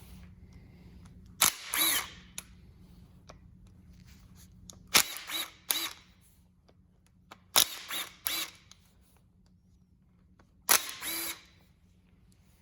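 Power driver run in four short bursts, each under a second with a sharp start and a brief whine, spinning out the bolts of the camshaft retainer plate on an LS-type V8 block.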